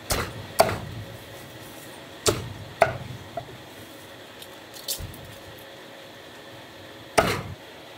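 Meat cleaver chopping through a whole roast chicken on a thick round wooden chopping block: about six sharp, unevenly spaced chops.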